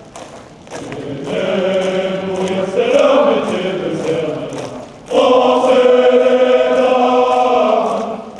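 A large body of male cadets singing a marching song together in unison, in long held phrases. The song breaks briefly about five seconds in, and the next phrase comes in louder. The faint, even tramp of marching feet runs under the singing.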